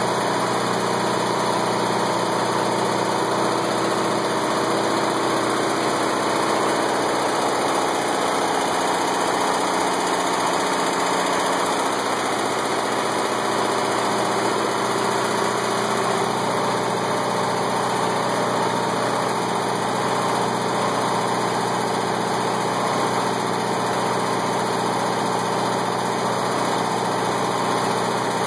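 Onan 12.5 kW generator engine running steadily, a constant drone with no change in level.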